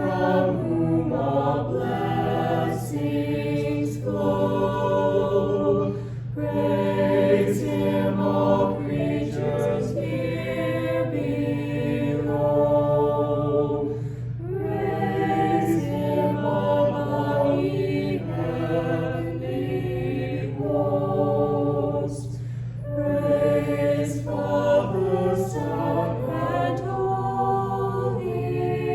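A choir singing in sustained phrases that pause briefly about every eight seconds, over a steady low hum.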